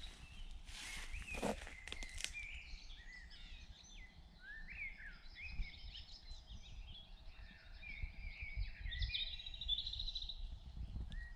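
Woodland birdsong: several birds singing and calling with short chirps and rising-and-falling whistled notes, over a low rumble. A few brief crackles, like steps through undergrowth, come in the first two seconds.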